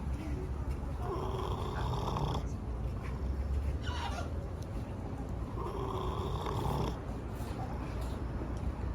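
A sleeping animal snoring, with two long snores about four to five seconds apart.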